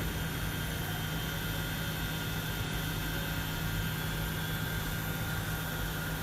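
Steady hum and fan-like hiss of running electrical equipment, with a constant low hum and a couple of fixed high whines that do not change.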